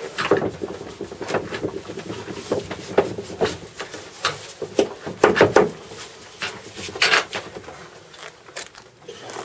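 Irregular rustling, scraping and clicking of a webbing strap and its fittings being pulled and handled inside a light aircraft's fuselage, with several sharper knocks.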